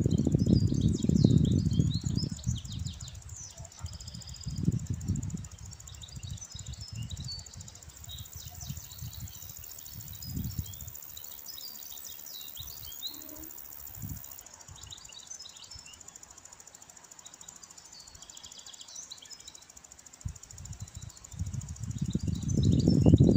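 Small songbirds chirping and twittering, with a gusty low rumble of wind buffeting the phone's microphone, strongest in the first few seconds and again near the end.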